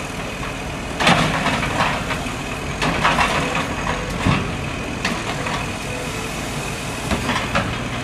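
Garbage truck running while its front loading arm lifts a wheelie bin up over the cab to empty it into the hopper, with a steady engine sound and repeated clattering knocks.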